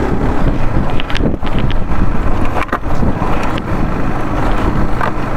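Honda CBR150R single-cylinder motorcycle engine running as the bike rides over a rough dirt track, with wind buffeting the handlebar-mounted phone's microphone. A few sharp knocks come through as it goes over ruts.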